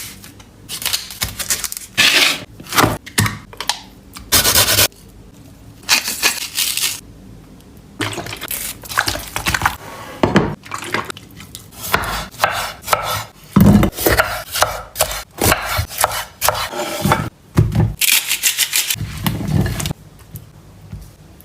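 Kitchen food-preparation sounds: dishes and utensils clinking, knocking and scraping in irregular bursts, with short pauses between.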